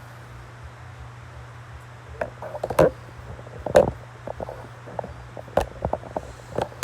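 Irregular clicking and tapping, like a computer keyboard and mouse in use, starting about two seconds in, over a steady low hum.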